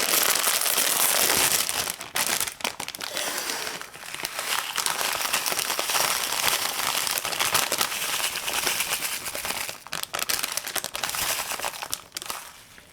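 A bag of chips being opened and handled, its plastic packaging crinkling and crackling continuously, easing off near the end.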